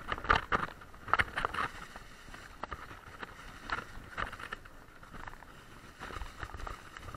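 Mountain bike riding over a bumpy, leaf-covered dirt trail: a steady rush of tyre and wind noise broken by irregular clusters of rattles and knocks as the bike hits bumps.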